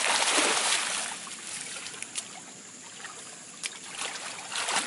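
Shallow muddy ditch water splashing and sloshing as a man lies and moves in it, loudest in the first second, then settling to a quieter trickle with a few small splashes and a louder slosh near the end.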